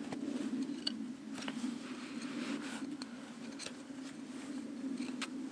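Small handling sounds of a wooden toggle stick being worked into the paracord windlass of a homemade bucksaw: light scraping with a few sharp clicks scattered through.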